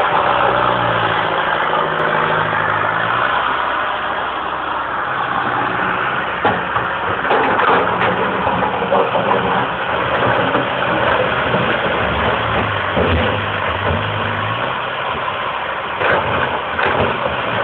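Komatsu tracked excavator's diesel engine running under load as it digs in a rocky riverbed, its pitch shifting as the arm works. A few sharp knocks of rock against the bucket come about six to eight seconds in and again near the end.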